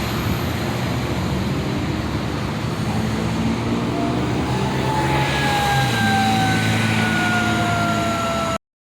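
Sounder commuter train's diesel locomotive running, its engine note growing louder about five seconds in, joined by a whine that slowly falls in pitch. The sound cuts off suddenly near the end.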